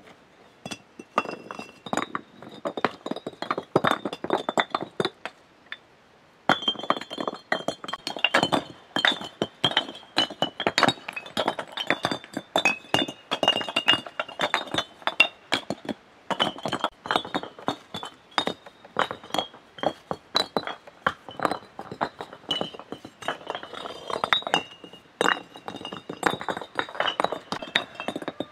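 Red clay bricks clinking and knocking against one another as they are handled and stacked, in rapid irregular clinks with a bright ringing tone. There is a brief lull about five seconds in, then the clinking starts again.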